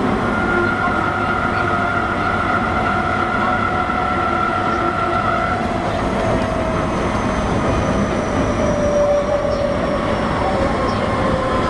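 Osaka Metro 21 series subway train running, heard inside the car: a steady rumble of wheels and running noise, with a motor whine that falls slowly in pitch as the train slows. A steady higher tone stops about halfway through.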